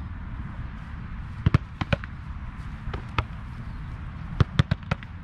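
Sharp thuds of a soccer ball being struck and caught during goalkeeper drills: a pair about a second and a half in, one near two seconds, one about three seconds in and a quick cluster of three near the end, over a steady low background noise.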